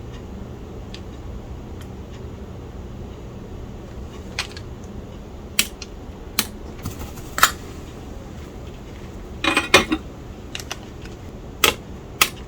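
Sharp clicks and small metallic clinks of hand tools and electronic parts being handled on a soldering bench, starting about four seconds in and bunching together near the end, over a low steady hum.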